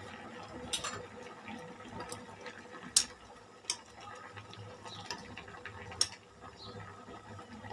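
Stew bubbling as it simmers in a steel pot, with a few sharp clicks as a spoon stirring it knocks against the pot.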